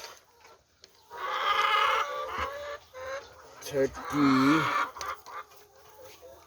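Laying hens clucking in a coop, with two long, harsh squawks, one about a second in and another about four seconds in.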